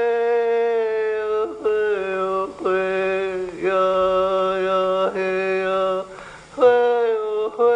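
A wordless voice chanting a string of long, steady held tones, each about a second long with short breaks between, and a brief pause about six seconds in.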